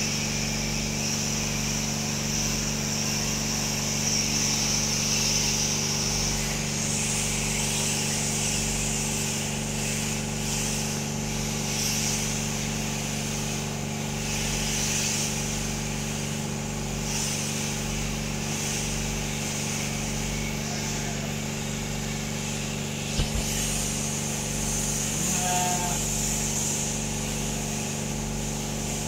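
Two electric sheep-shearing machines running: overhead motors with a steady hum, and a high buzz from the handpieces' cutters working through the fleece.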